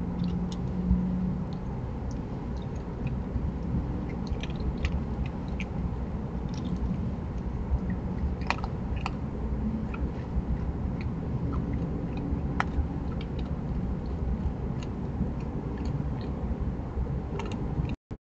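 Raccoon eating dry food, with scattered sharp crunches over a steady low hiss and rumble from the trail camera's microphone. The sound cuts off near the end.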